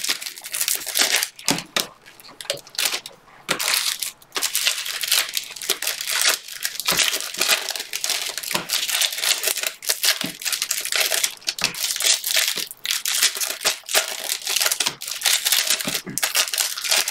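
A thick stack of Bowman baseball cards being flipped through by hand: a rapid, uneven run of card edges snapping and sliding against one another.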